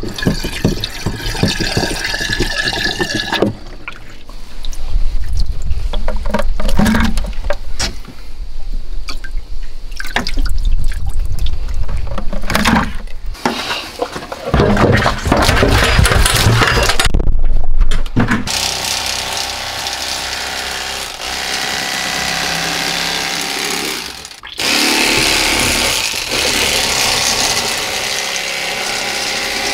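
Water splashing and running, in several short cut-together stretches: catfish stirring the water of a boat's livewell, then water running in a sink where the catfish are being cleaned.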